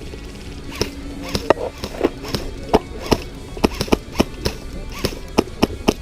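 Airsoft guns firing, a string of irregular sharp cracks and snaps starting about a second in, some close together, over background music.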